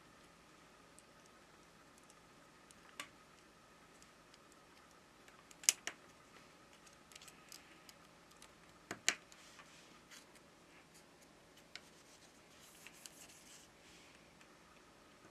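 Small sharp clicks of flex-cable connectors being pressed onto their sockets on a Samsung Galaxy S20 Ultra's board, a handful in all with two close pairs about six and nine seconds in. Soft rustling of a cloth held against the phone comes in briefly a couple of times.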